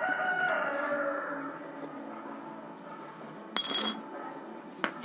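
Metal-on-metal clinking as a bicycle freewheel is unscrewed and taken apart by hand: one sharp, ringing metallic clink about three and a half seconds in, and a lighter click near the end.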